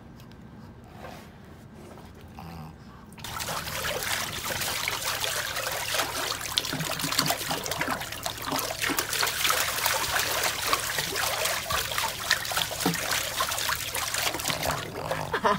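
Pool water splashing and sloshing as a pug paddles with its front legs while held afloat. Faint lapping for the first three seconds, then steady, busy splashing from about three seconds in.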